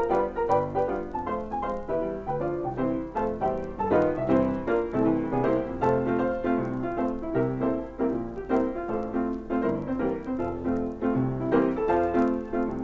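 Piano-led cartoon soundtrack music, a quick run of notes over a bass line.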